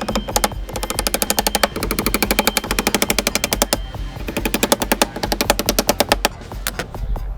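Power tool hammering rapidly in three bursts of about two seconds each, with short pauses between them.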